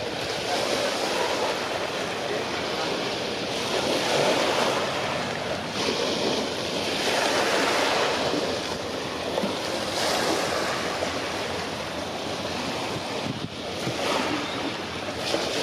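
Sea waves washing against the shore, the wash swelling and falling away every few seconds, with some wind on the microphone.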